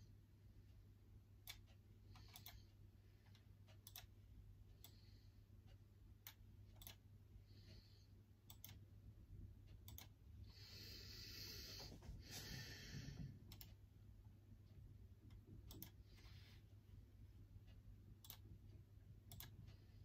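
Faint, scattered clicks a second or two apart, typical of occasional key presses on a laptop keyboard, with a soft rustle for a few seconds around the middle. A low steady hum runs underneath.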